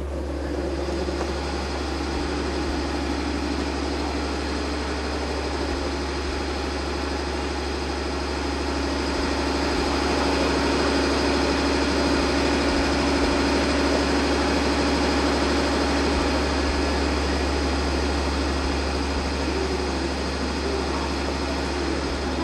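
EF65 electric locomotive standing still, its auxiliary machinery giving a steady hum with a few constant whining tones. It grows a little louder partway through, then eases back.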